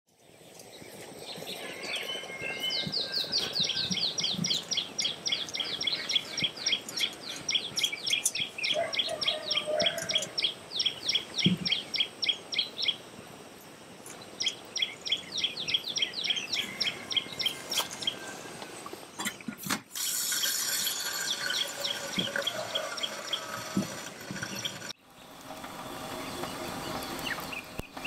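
A songbird repeating a fast series of high chirps, about four a second, in two long runs, over the soft crackle of a wood fire burning in a small titanium grill stove. Near the end other, shorter bird calls sound over a steady hiss.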